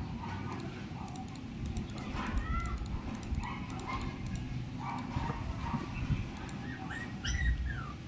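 A dog whining in short whimpers that rise and fall, over a steady low rumble.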